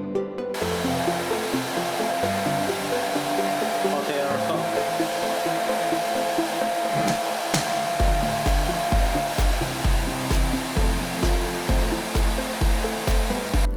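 A hot-air blower runs steadily with an even rush of air, over background electronic music whose beat comes in about eight seconds in.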